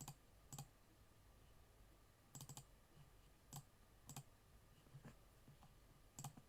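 Faint, irregular clicking at a computer, single and double clicks a second or so apart.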